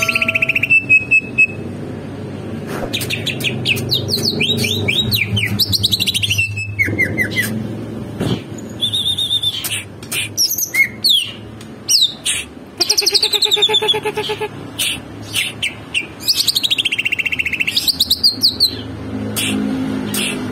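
Birds chirping and calling, with many quick sweeping whistles and chirps, over a steady low rumble.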